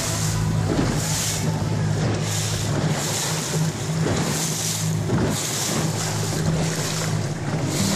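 Boat engine running with a steady low hum, with water rushing and splashing against the hull in recurring swishes and wind on the microphone.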